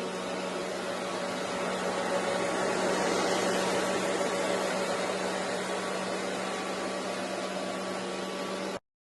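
Hoover Elite Rewind upright vacuum cleaner running steadily with a constant motor hum, cutting off suddenly near the end.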